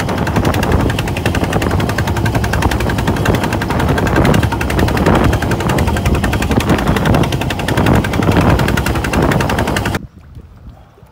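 Boat engine running with a rapid, even pounding beat, mixed with wind and water noise as the small fishing boat crosses rough sea. The loud sound cuts off abruptly about ten seconds in, leaving a much quieter background.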